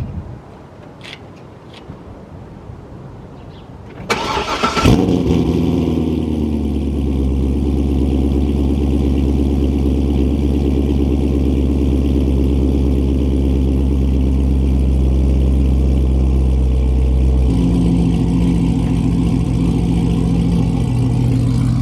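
Chevrolet C6 Corvette V8 with long-tube headers, X-pipe and muffler delete, cold-starting. A few faint clicks come first, then the starter cranks about four seconds in. The engine catches with a rev flare and settles into a loud, steady fast idle, whose note changes pitch about seventeen seconds in.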